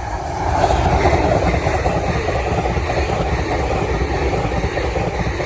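Passenger train passing over a level crossing at speed. Its noise swells quickly, peaks about a second in and holds loud as the carriages rush by.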